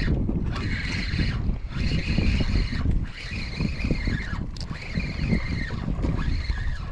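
Wind buffeting the microphone from a kayak on open water, with a higher hiss that swells and fades in pulses about every one and a half seconds.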